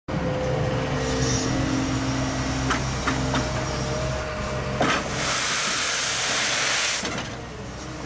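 Wheeled excavator running, its engine and hydraulics giving a steady whine with a few knocks in the first half. From about five to seven seconds in, a loud hiss takes over, then drops away.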